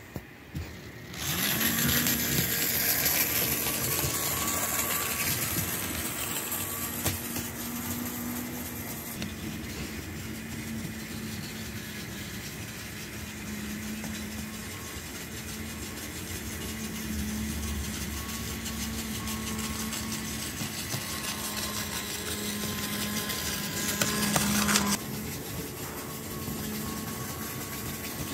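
Model trains running along the track: a steady electric motor hum with wheel and rail noise, briefly louder near the end.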